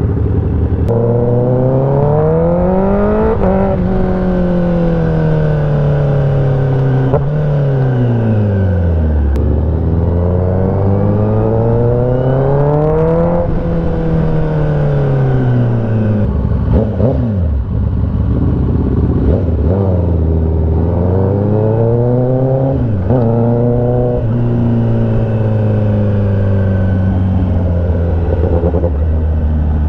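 A 2021 Kawasaki ZX-10R's inline-four engine heard from the rider's seat. It starts on a steady low note, then rises and falls several times as the bike accelerates and rolls off at low city speed, and settles to a steady low note again near the end.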